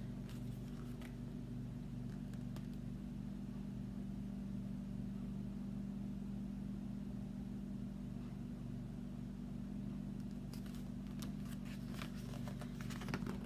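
A steady low hum throughout, with faint rustles and clicks of a picture book being handled about a second in and again near the end.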